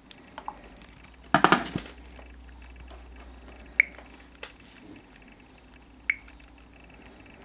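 Hard objects clicking and clattering: a quick run of knocks about a second in, then single sharp clicks, some with a brief clinking ring, every second or two, over a faint steady low hum.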